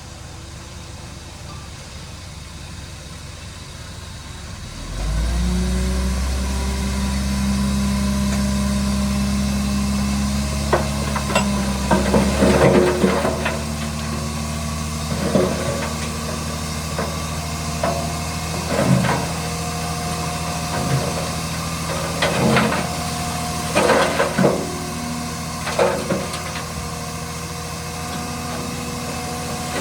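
Shantui DH17 bulldozer's diesel engine running, growing much louder about five seconds in and then working steadily. Repeated clanks and knocks come in over it from about a third of the way through.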